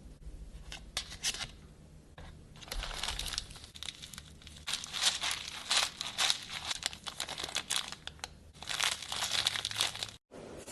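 Slime being squished and stretched by hand, making irregular crinkly, crackling sounds in dense bursts.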